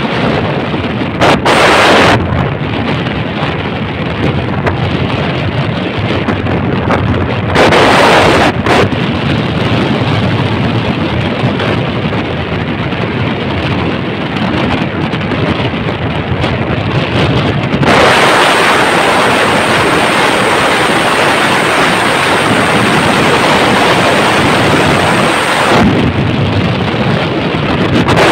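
Wind blasting over the microphone of a phone carried on a moving vehicle, with road and engine rumble underneath. There are brief, louder gusts about two and eight seconds in, and the noise is louder and brighter through a long stretch in the second half.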